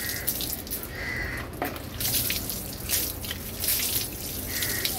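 Water poured from a plastic cup splashing and trickling over a motorcycle's metal rear mudguard, rinsing off the soap after scrubbing the rust.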